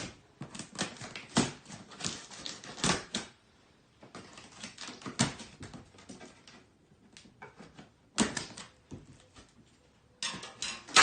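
Irregular clicks, knocks and rustling of packaging and plastic kitchen-appliance parts being handled during unboxing, with a few louder knocks and a brief rush of rustling near the end.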